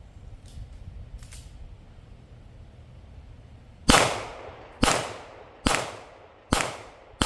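Five gunshots fired in steady succession, a little under a second apart, each with a short ringing tail, starting about four seconds in.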